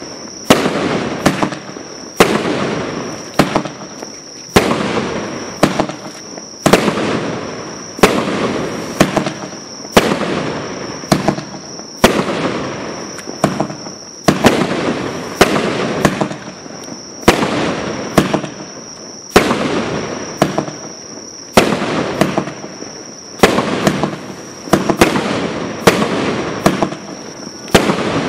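Mad Ox Diamond Mine 200-gram consumer firework cake firing shot after shot, roughly one every one to one and a half seconds. Each sharp report is followed by a crackling burst that fades over about a second.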